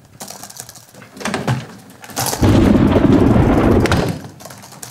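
A sharp crack about two seconds in, followed by a loud, low rumble lasting under two seconds.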